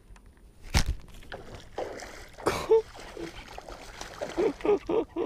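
Baitcasting reel being cranked while a hooked bass is fought from a kayak, with a sharp knock about a second in and a splashy burst near the middle. A quick run of short, low pitched squeaks or grunts comes near the end.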